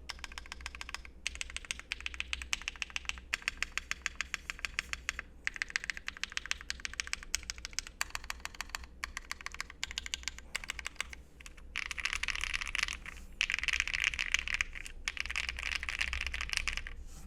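Typing on a Tofu60 60% mechanical keyboard with a gasket-mounted brass plate, lubed Creamerons switches (Gateron housings with cream stems) and PBT keycaps: a quick stream of clacks. From about twelve seconds in the keystrokes come faster and louder, running together into a dense clatter.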